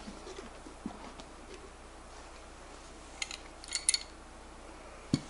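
Handling noise from camera gear being packed into a leather case: a few soft knocks, then a quick cluster of small metallic clinks about three to four seconds in.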